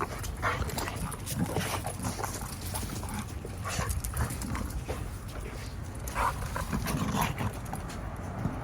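Dogs playing together: scuffling and scattered short clicks, with a few brief whines, the clearest about six seconds in.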